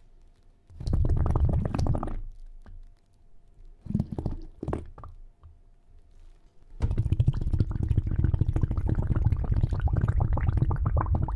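Low gurgling, bubbling water sound in three irregular bursts, the longest filling the second half.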